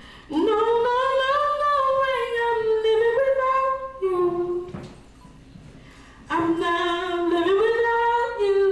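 A woman singing a cappella in long held notes that slide up and down in pitch, in two phrases with a short pause between them.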